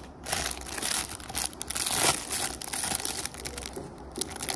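Clear plastic packaging bag crinkling and rustling as it is handled, in uneven spurts, loudest about two seconds in.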